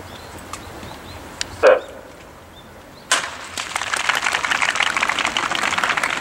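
A starting gun cracks once about three seconds in, and spectators immediately break into cheering and clapping as the sprinters leave the blocks. Earlier, about a second and a half in, a single short shout rings out over a quiet background.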